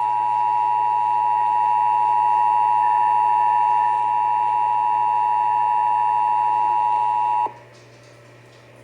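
Emergency Alert System attention signal: two steady tones sounding together (853 and 960 Hz), held without a break. It cuts off sharply near the end, leaving faint hiss, and announces the emergency alert message that follows.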